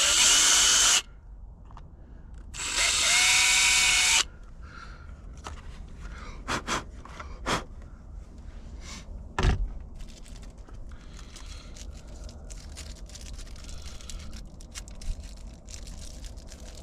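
Electric drill with a small bit boring two pilot holes for screws: two short bursts of the motor whining, the first about a second long, the second about a second and a half, with the pitch rising as it spins up. Afterwards come a few light clicks and knocks of handling.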